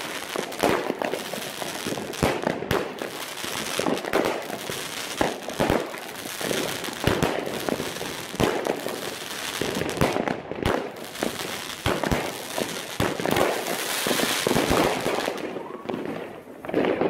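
Katan Black Sword single-fuse firework cake firing a rapid, irregular series of shots: sharp bangs several a second over a continuous fizz of bursting effects, thinning out near the end.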